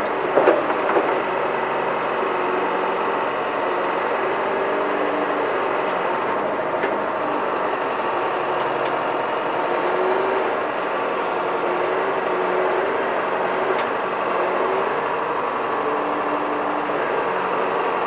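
John Deere 410 backhoe loader's engine running steadily just over idle while the hoe digs. Pitched notes in the machine's sound come and go as the boom and bucket are worked.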